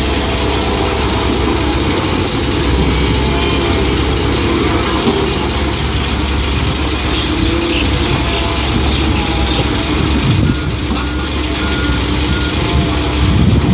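Komatsu PC130-8 excavator's diesel engine running steadily at work. A few short, faint beeps come about ten seconds in.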